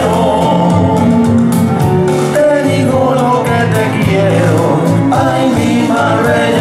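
A pasodoble sung by two male voices with vibrato over instrumental accompaniment.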